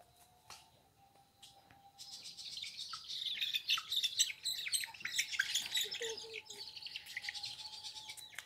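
Birds chirping in a dense, rapid high twitter that starts about two seconds in and carries on to the end.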